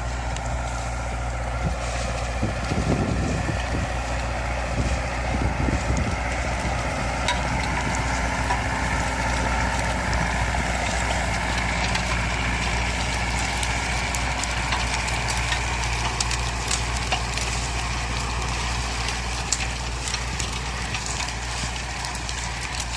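Engine of a farm vehicle running steadily: a constant low hum with higher bands whose pitch drifts slowly.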